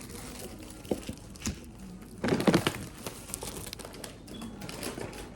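Crinkling and rustling of food wrapping being handled, with two short clicks about a second in and a louder burst of crinkling a little after two seconds.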